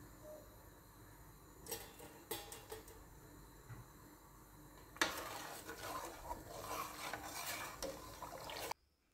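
A few light knocks, then from about halfway a spoon stirring water in a steel pot, swishing and clinking against the pot, which cuts off suddenly near the end.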